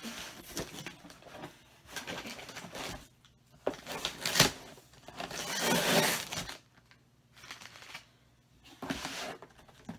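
Cardboard shipping box being pulled open by hand: irregular rustling, scraping and tearing of cardboard, with a sharp snap about four and a half seconds in and a longer tearing noise around six seconds.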